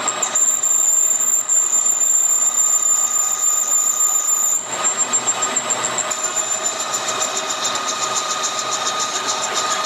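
Metalworking machine tool running and cutting, a steady mechanical noise with a high-pitched whine. The sound changes abruptly a little under halfway through, and a fast pulsing comes into the whine later on.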